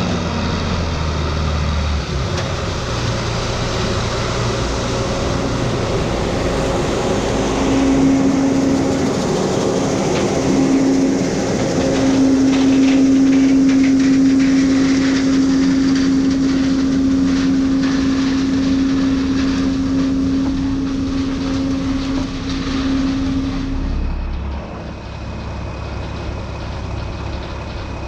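Farm machinery running steadily at harvest. A strong steady hum comes in about a third of the way through and cuts off near the end, when the overall sound drops.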